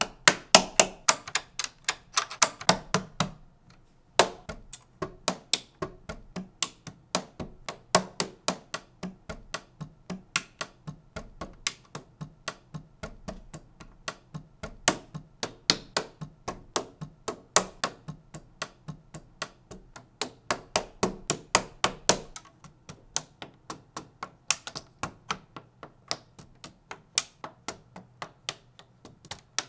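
LEGO bricks clicking together, a rapid run of sharp plastic clicks, about two or three a second, with a short break about three and a half seconds in.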